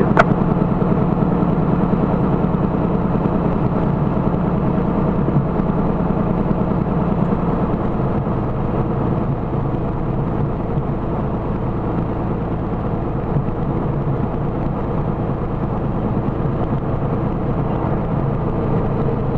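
Cessna Corvalis 400's engine and propeller running steadily at taxi power, heard from inside the cabin.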